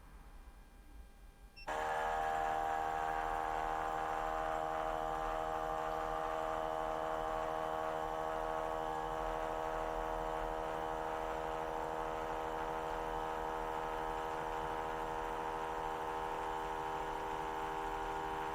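Outin Nano portable espresso machine's pump starting suddenly about two seconds in and running with a steady hum.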